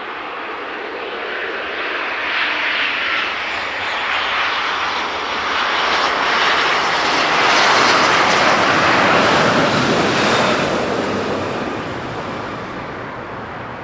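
An airliner's engines passing by: a broad rushing roar that builds to its loudest about eight to ten seconds in, then fades away.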